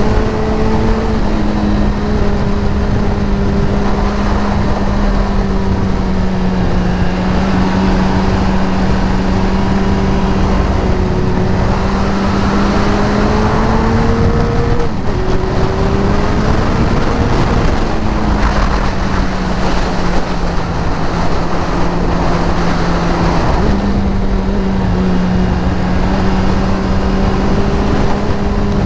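Suzuki Hayabusa's inline-four engine running steadily at cruising speed, with wind rushing over the microphone. The engine note climbs and drops sharply about halfway through, and steps up again about three-quarters of the way in.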